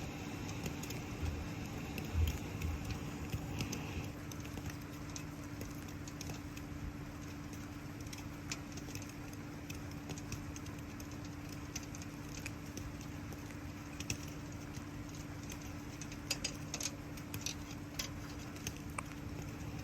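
Wood fire crackling with scattered sharp pops over a steady hiss of rain. A steady low hum runs underneath, and there are a few dull thumps about two seconds in.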